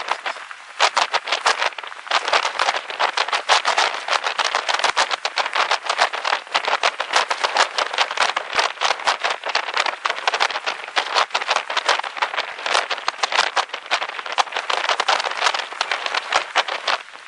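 Dense, irregular patter of raindrops striking a vehicle, many small ticks a second, easing briefly about half a second in.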